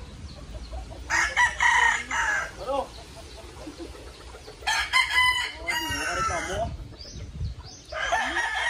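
Gamecock roosters crowing, three separate crows: one about a second in, one near the middle, and one starting near the end.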